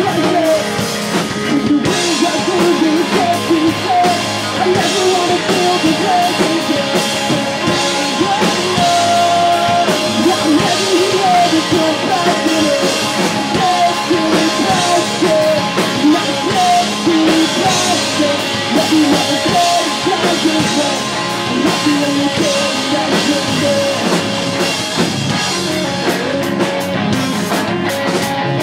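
A live pop-punk rock band playing loud and without a break: electric guitars, bass and a drum kit.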